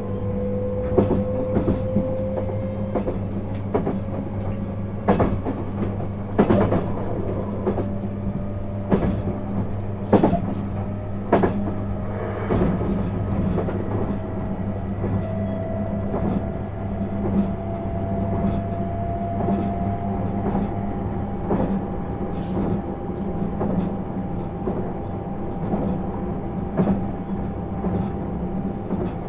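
Running sound inside a JR East 651 series electric train car picking up speed: a steady low hum under a thin motor or gear whine that climbs slowly in pitch. Wheels clack over rail joints every second or two.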